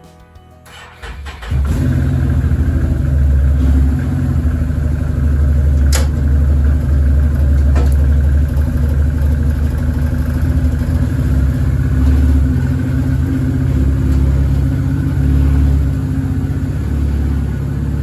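Can-Am Maverick 1000R turbo side-by-side's engine being cranked and catching about a second and a half in, then running steadily with its level rising and falling a little: the first start after the primary and secondary clutches were rebuilt. Two sharp clicks cut through about six and eight seconds in.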